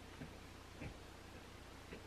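Knife cutting through bread dough, its blade knocking softly on the wooden cutting board three times over a faint low hum.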